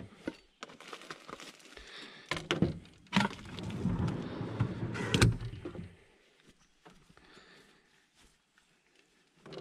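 A metal slide-out storage drawer in a vehicle being rummaged through, with rustling cloth and clinking tools, then pushed shut with a thunk about five seconds in. Faint rustling follows.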